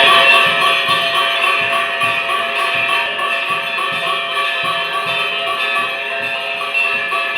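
Temple aarti music: fast, even jingling percussion over several sustained ringing tones.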